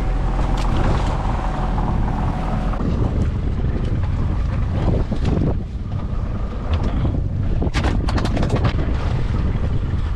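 Fishing boat's engine running under way, with wind buffeting the microphone and water rushing past the hull. A few sharp knocks come about eight seconds in.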